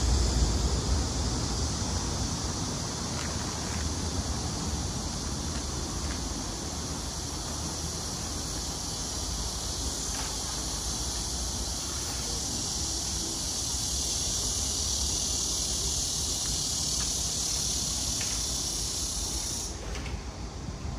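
Steady hiss of heavy rain, with a low wind rumble on the microphone at the start. The hiss cuts off suddenly near the end.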